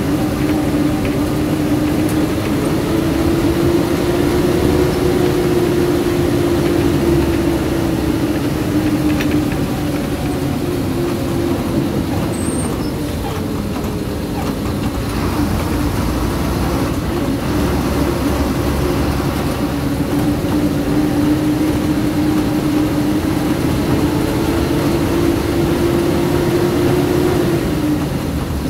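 Diesel engine of an Ashok Leyland MSRTC bus running on the road, a steady drone whose pitch rises and falls slightly as the bus speeds up and eases off.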